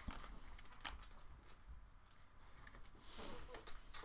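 Faint, scattered light clicks and taps from trading cards and a pack being handled.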